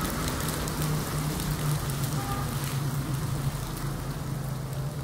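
Heavy rain pattering steadily on ballast and rails, with the low steady hum of a train's engine underneath that fades near the end.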